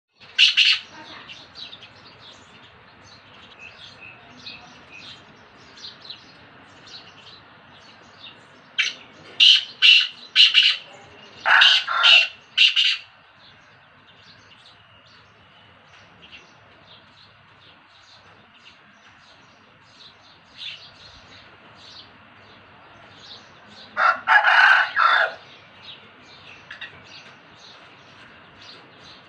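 Black francolin calling: a loud harsh note at the start, then a run of about seven clipped, grating notes about nine seconds in, and another short loud cluster near the end. Faint, quick chirping continues in the background between the calls.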